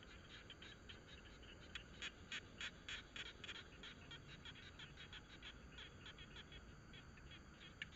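Faint, rapid repeated calls of a small animal, about three to four a second, louder for a stretch about two seconds in.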